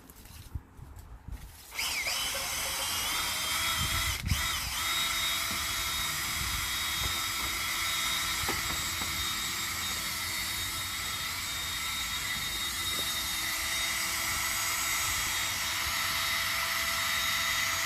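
A power tool's electric motor starts about two seconds in, rising in pitch as it spins up, then runs steadily with a high whine, with a single knock a couple of seconds after it starts.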